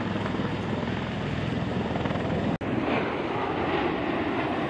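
V-22 Osprey tiltrotor flying low past, its engines and proprotors giving a steady, loud drone. The sound cuts out for an instant a little past halfway, then aircraft noise carries on.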